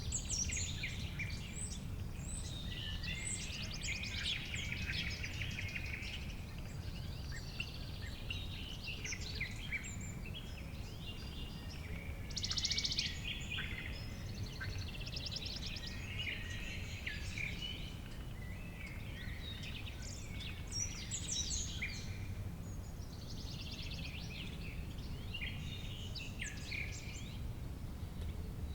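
Summer meadow ambience: several small birds chirping and trilling over one another, with a louder buzzy trill about halfway through. A low steady rumble runs underneath.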